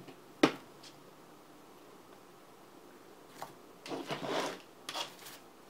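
Plastic slime containers being handled on a table: one sharp click about half a second in, then a short run of clattering and rustling near the end as a small jar is picked up.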